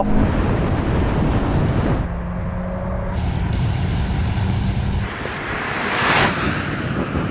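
Volkswagen Golf hot hatchbacks with 2-litre turbocharged four-cylinder engines accelerating hard in a drag race, heard through wind noise on the microphone. One car passes close by about six seconds in, its sound rising and then falling away.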